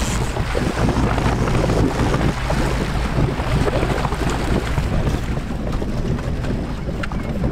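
Boat motor running steadily, under wind buffeting the microphone and water rushing past the hull.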